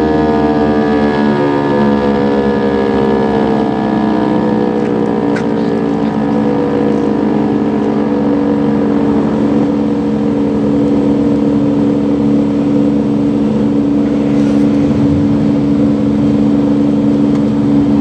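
ASC T-128 tornado siren winding down after its test, its pitch sliding slowly downward over a steady low hum.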